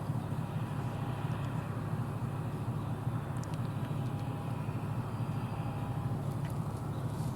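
John Deere combine running steadily while harvesting soybeans, a constant low engine and machinery rumble.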